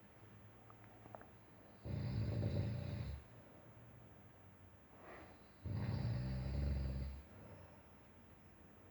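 Snoring: two long snores about four seconds apart, each lasting over a second, with quiet breathing between them.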